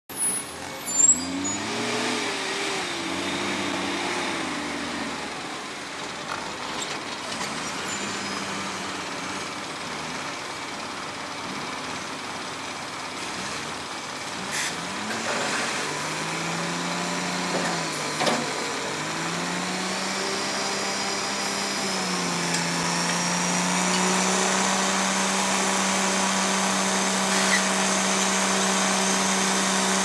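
Diesel engine of a large wheeled log loader revving up and down as its hydraulic grapple works a load of logs off a log truck, then holding a steady high rev for the last several seconds. A sharp clank about a second in and a few brief knocks partway through.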